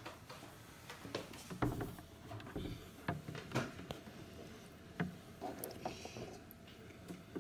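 Light taps, clicks and rustles of small plastic toy dolls and accessories being handled, with a few sharper knocks spread through.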